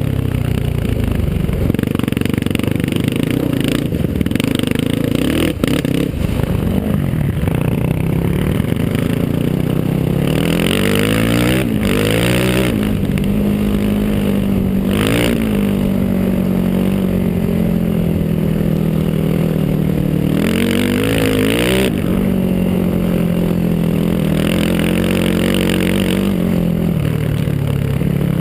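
Single-cylinder four-stroke sport quad engine running hard, its pitch climbing and dropping again and again with the throttle and gear changes.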